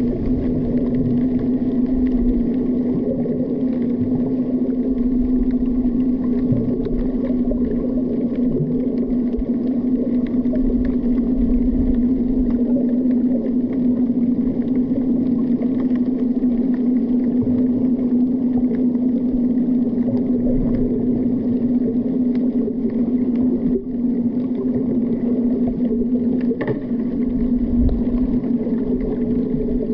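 Underwater sound picked up through a camera's waterproof housing: muffled water noise under a steady low drone of the kind a boat engine makes when heard through the water. A second, higher drone joins near the end.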